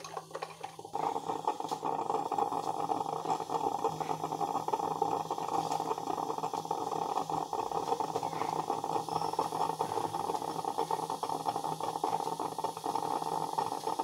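Crompton Greaves drip coffee maker percolating: its heater boiling the water and pushing it up to the coffee grounds, a steady bubbling hiss that starts about a second in.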